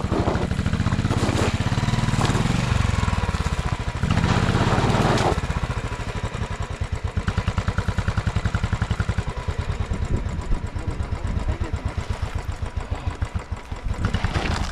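Royal Enfield motorcycle engine revving hard in surges for the first five seconds or so, then chugging at lower revs. The heavy bike is labouring through loose, soft soil on a forest track.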